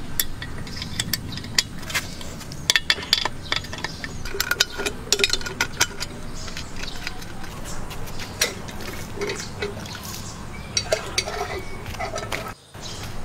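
Spanners clinking on the nuts and bolts of a hand water pump's base flange as it is unbolted: irregular sharp metal clicks and clanks.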